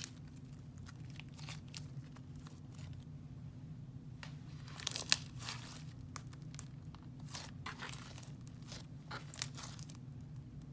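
Clear floam slime packed with foam beads being worked by hand, giving an irregular crackling and popping as the beads crunch together. It goes thin about three seconds in, then thickens, with the loudest pop about five seconds in.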